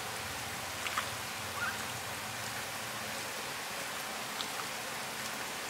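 Hands squishing and massaging raw chicken wings with chopped onion and garlic in a bowl, giving a few faint wet clicks over a steady hiss.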